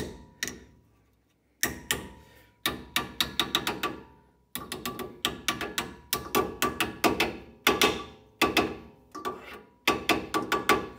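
Small ball-peen hammer giving light, rapid taps to a new steel abutment clip to seat it onto the rear brake caliper bracket. The taps come in several quick runs separated by short pauses, each with a faint metallic ring.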